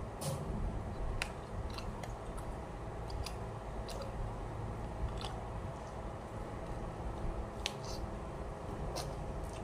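A person eating: chewing, with about nine scattered, sharp clicks from a utensil and the paper food box, over a low steady hum.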